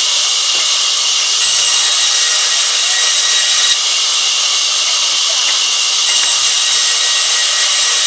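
Sawmill band saw running steadily and ripping wooden boards, a continuous high-pitched hiss.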